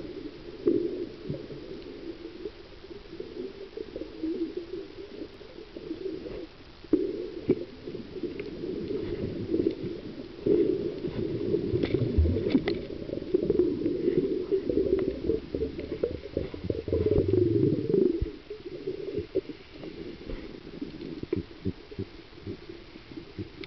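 Underwater sound picked up by a camera in a waterproof housing: a muffled rumble of moving water with scattered faint clicks. It grows louder through the middle stretch and eases off after.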